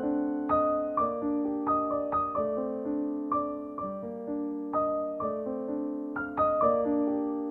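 Background piano music: a gentle melody over lower chords, with notes struck two or three times a second and left to fade.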